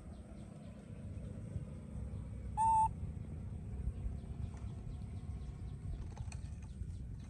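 A single short animal call about two and a half seconds in: one steady, clear tone with overtones, lasting about a third of a second, over a low steady rumble.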